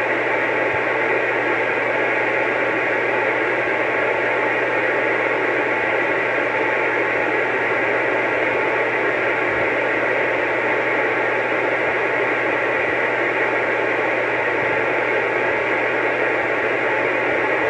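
Steady static hiss from a CB radio's speaker, the band noise of an open receiver with no station talking, cut off above and below like radio audio, over a faint low hum.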